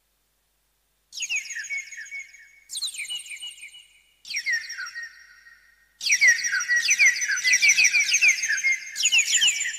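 Casio CT-X700/CT-X870IN keyboard playing a sound-effect tone: quick, high, falling electronic chirps, several a second. It comes in runs starting about a second in, with short gaps, and the run from about halfway is longer and louder.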